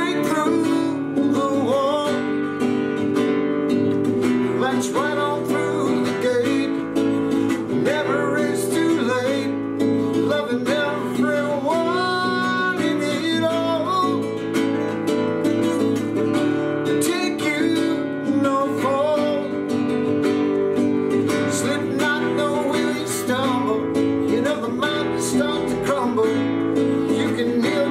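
A man singing to his own classical nylon-string guitar, the guitar played throughout under a wavering sung melody.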